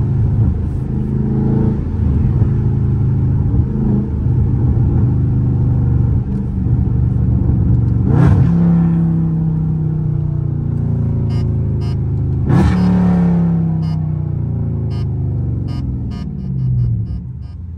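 A Dodge Charger Scat Pack's 6.4-litre HEMI V8 and exhaust, heard from inside the cabin while driving. The engine note rises and falls under throttle, with two short sharp cracks about eight and twelve and a half seconds in.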